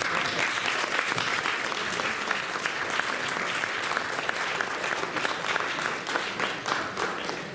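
Audience applauding: many hands clapping in a dense, steady crackle that starts abruptly and eases off a little near the end.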